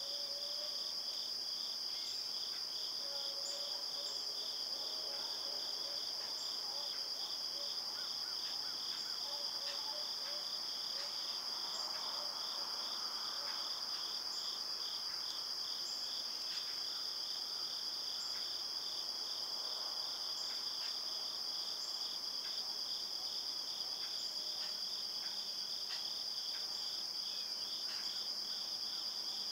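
Insect chorus of crickets or katydids in woodland: a steady high buzz with a second, pulsing chirp beneath it, both going on without a break.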